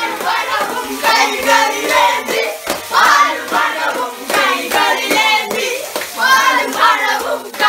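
A group of boys singing together while clapping their hands.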